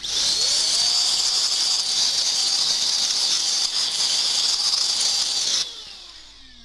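A blast of compressed air hisses through a PC case fan, spinning it up with a rising whine that then holds steady. The blast cuts off suddenly near the end, and the fan's whine falls away as it spins down.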